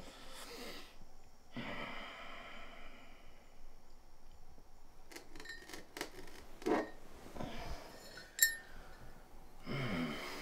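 Bedding rustling as someone shifts about in bed, with a few soft clicks, and a single sharp clink of a glass bottle a little past eight seconds in.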